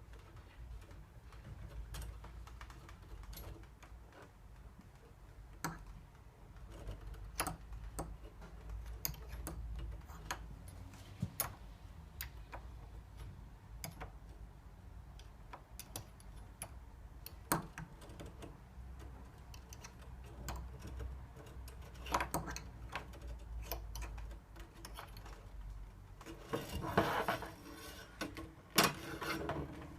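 A letterbox tool with a rubber gripper attachment is worked through a door's letterbox, making irregular clicks, taps and knocks as it hits the letterbox and door. About 26 to 29 seconds in there is a denser spell of rattling.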